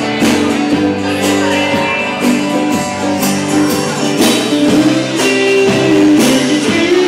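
Live band playing an instrumental passage without vocals: strummed acoustic guitar over a drum kit and hand percussion with a steady beat.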